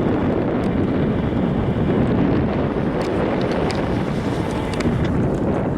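Wind buffeting the microphone: a steady, rumbling noise with a few faint scattered clicks.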